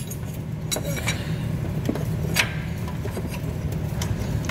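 Scattered light clicks and clinks of hands handling the wiring harness, connectors and hoses around an engine, over a steady low hum.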